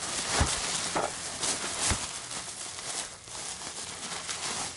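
Bubble wrap being handled and pulled open, a continuous plastic crinkling and rustling with a few sharper crackles in the first two seconds.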